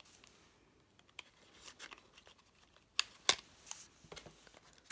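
A small cardboard nail-polish box handled and opened by hand: light rustling and scraping, with a few sharp clicks about three seconds in.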